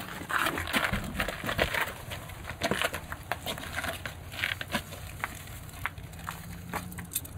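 Scuffing and rustling of clothing and tactical vests as officers grapple with a person pinned against a minivan, with irregular small clicks and knocks throughout.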